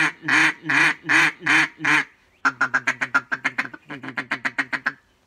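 Duck Commander Sarge duck call being blown: about six loud, evenly spaced quacks, then from about two and a half seconds in a fast chatter of short notes, about eight a second, that stops just before the end.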